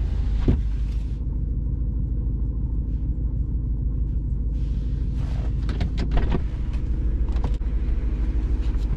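BMW E92 M3's V8 idling with the car stopped, a steady low rumble heard from inside the cabin. The higher hiss drops away about a second in, and a few light clicks come around the middle.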